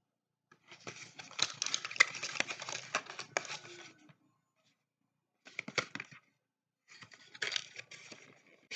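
Medicine packaging being handled: a dense run of crackles and sharp clicks lasting about three seconds, then two shorter bursts of the same.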